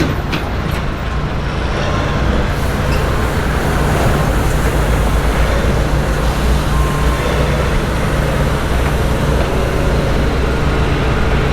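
A motor vehicle engine droning steadily at a low pitch, with road and traffic noise under it.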